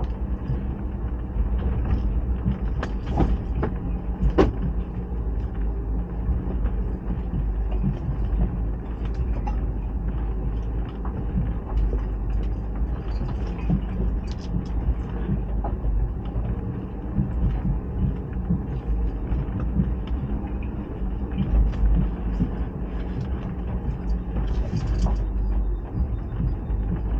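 A car driving slowly: a steady low rumble of engine and tyres, with scattered knocks and a sharper one about four seconds in.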